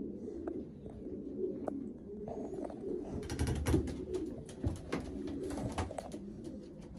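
Racing pigeons cooing steadily in a loft, with a spell of rustling and sharp clicks in the middle.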